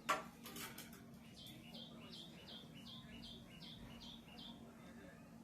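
A sharp click, then a bird calling a run of about eight short, falling chirps, a little over two a second, over a faint steady hum.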